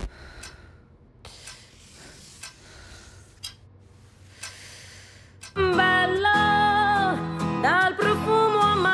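Soundtrack music breaks off, leaving a few seconds of low, quiet sound with a few faint clicks; about five and a half seconds in, a song begins with a singing voice over guitar-like accompaniment.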